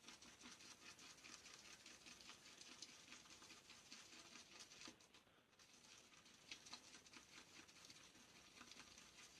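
Shaving brush whisking Williams Mug shaving soap into a lather in a shaving scuttle: a faint, continuous wet crackling patter, with a brief pause about five seconds in. The lather is still thin and full of big bubbles.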